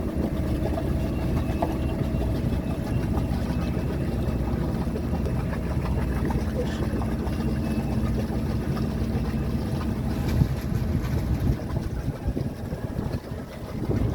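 A Hunter 320 sailboat's inboard diesel engine running steadily as the boat motors along: a low, even drone.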